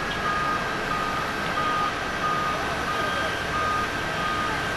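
Airbus A330-300 on final approach, its jet engines a steady broad rush. Over it, a short electronic beep repeats evenly about every two-thirds of a second, seven times.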